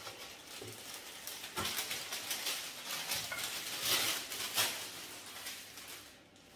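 Baking paper rustling and crinkling as it is handled and peeled off rolled-out tart dough, with a light knock about a second and a half in.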